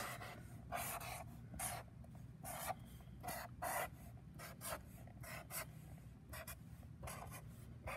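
Felt-tip Sharpie marker drawn across paper in quick short strokes, about two a second, as sun rays are sketched.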